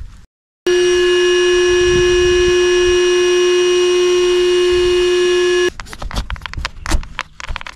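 Cordless electric air pump running steadily as it inflates an inflatable kayak, giving a loud, unwavering hum at one fixed pitch that starts suddenly and cuts off after about five seconds. A few light knocks and handling clicks follow.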